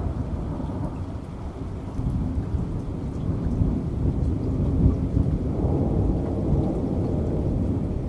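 Heavy rain with a low, continuous rumble of thunder that swells about two seconds in and is loudest around the middle.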